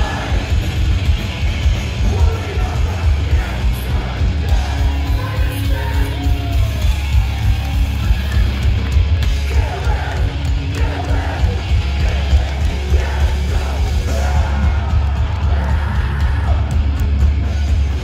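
Hardcore punk band playing live and loud, a singer yelling over electric guitars and drums, with heavy low end.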